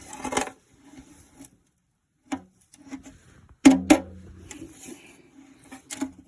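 Handling noises: a brief rustle, then a few separate knocks and clicks, the loudest one partway through followed by a low hum.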